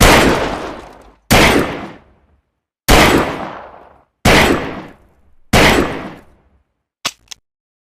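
Cheap Saturday night special revolver firing five single shots, one about every second and a half, each ringing out for about a second. Two short light clicks follow near the end.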